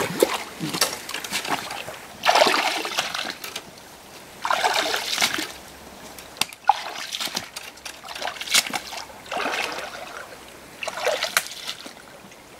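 Boots wading through a shallow creek: water splashing and sloshing in uneven surges, one with each step, about six in all.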